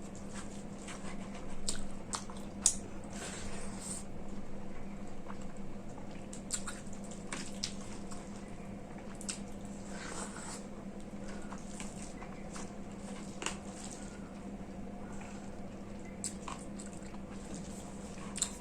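Close-up eating sounds of rice with soyabean, potato and potol curry: wet squishing of the rice and curry and chewing of big mouthfuls, with many short smacks and clicks at irregular moments, over a steady low hum.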